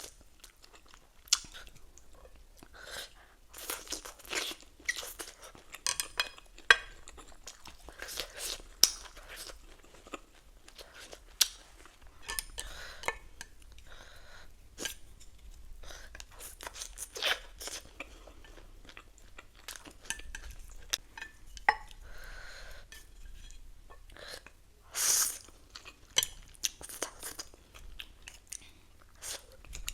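Close-miked chewing and crunching of food, a steady run of sharp, irregular crunches and mouth clicks, with a few longer noisy bursts about 4 seconds and 25 seconds in.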